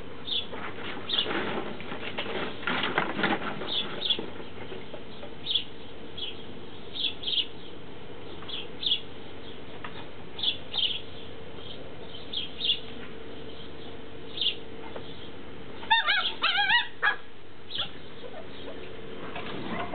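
Tibetan terrier puppies whining and squeaking: short high squeaks recur every second or so, with a brief run of wavering yelps near the end, the loudest moment. Some rustling near the start.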